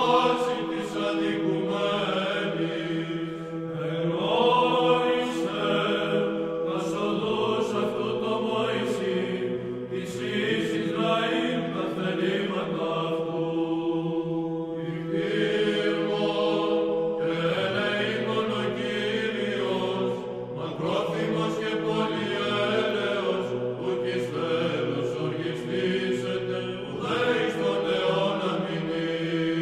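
Chanted singing over a steady held drone note, the melody moving slowly above the drone.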